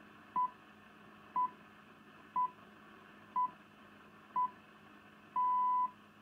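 The BBC Greenwich Time Signal: five short pips about a second apart, then a longer sixth pip that marks the hour. They come over BBC Radio 4's 198 kHz long-wave AM signal through a Yaesu FT-990 transceiver's speaker, with a faint steady hiss beneath.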